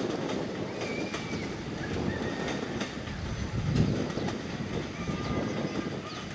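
Steel wheels of a train's coaches rolling on the rails: a steady rumble with rail-joint clicks, and brief high wheel squeals now and then as the coaches round a curve.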